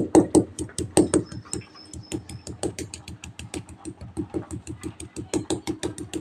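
Ginger being pounded by hand on a bare concrete floor: a fast, even run of sharp knocks, about seven a second.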